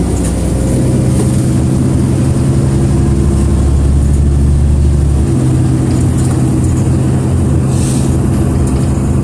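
Interior sound of a LiAZ 6213.22 articulated city bus under way: the engine and drivetrain hum steadily together with road noise. The low engine note changes about five seconds in.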